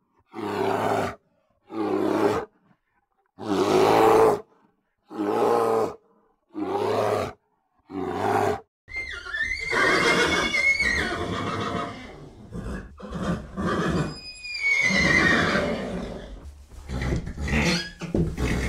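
A series of six loud animal calls, each under a second long and about one and a half seconds apart, with silence between them. They are followed by a continuous stretch of overlapping calls with high gliding chirps.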